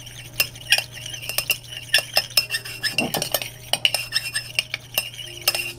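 A stirrer clinking against the sides of a glass beaker while polysorbate 20 and distilled water are mixed together. Many quick, irregular clicks, several a second, each with a short ringing glass tone.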